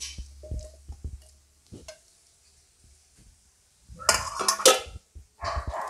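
Stainless-steel plate and mixer-grinder jar clinking and clattering as chopped tomatoes are tipped into the jar. There are light clicks at first, then a loud burst of ringing metal clatter about four seconds in, and more clatter near the end.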